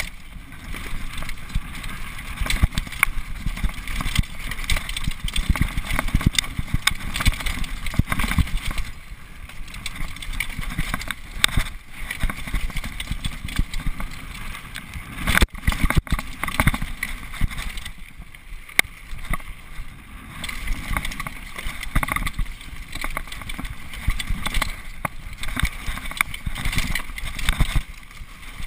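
Xprezo Furax mountain bike running fast downhill over a rocky dirt trail: a steady rumble of tyres on dirt and stones, with constant rattling and knocks from the bike, and wind buffeting the microphone.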